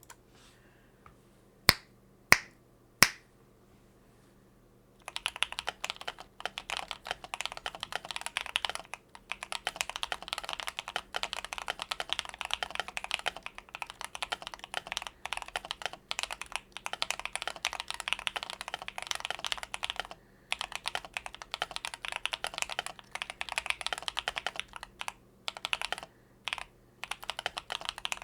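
Three sharp, loud clicks near the start. Then, from about five seconds in, fast continuous typing on a Mercutio40 mechanical keyboard fitted with Akko Lavender switches and foam-modded, with brief pauses.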